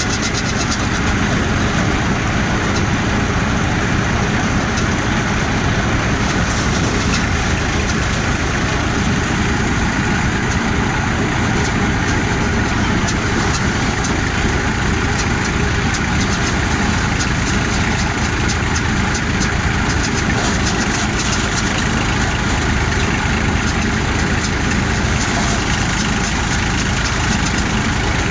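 Kisaan paddy thresher running steadily under load as bundles of rice are fed into its drum, over the continuous running of the tractor engine that drives it, with a fine crackle of straw and grain passing through.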